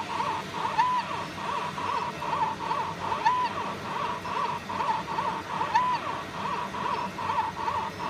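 Fiber laser marking machine with a rotary attachment engraving bird rings: its motors give a quick run of short rising-and-falling whines, about three a second, and a longer held whine three times, about every two and a half seconds, as the rings are marked and indexed.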